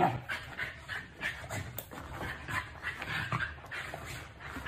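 A husky-type dog play-fighting with a person's hand: a run of irregular short vocal sounds and scuffles, with no long barks or howls.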